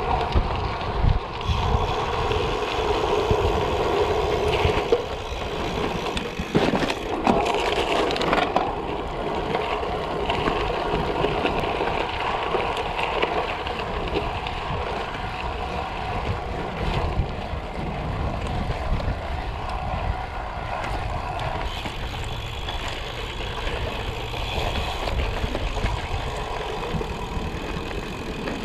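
A 2021 Specialized Diverge Comp Carbon gravel bike being ridden, its tyres rolling steadily over the ground, with wind buffeting the microphone.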